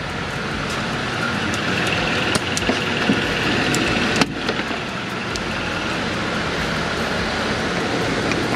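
Steady mechanical noise throughout, with scattered sharp clicks and a knock about four seconds in as air hoses are unhooked and handled.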